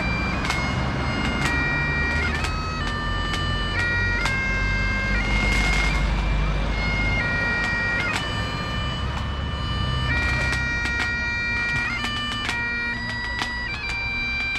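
Great Highland bagpipes playing a tune: a steady drone under a melody that steps from note to note, with quick grace-note flicks at the changes. Passing cars add a low rumble, heaviest about halfway through.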